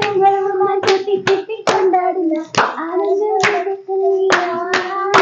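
A voice singing long held notes of a Malayalam song, with hands clapping along about twice a second.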